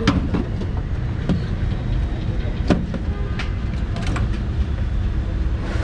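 Steady low rumble of street traffic, with a few sharp clicks and knocks scattered through it.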